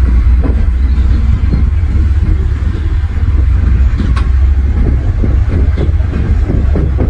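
Bulldozer's diesel engine running steadily under load, heavy and low, with irregular metal clanks and rattles and one sharp click about four seconds in.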